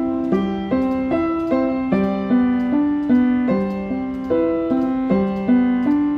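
Piano keys played by hand: a repeating figure of single notes in the middle register, about two to three notes a second.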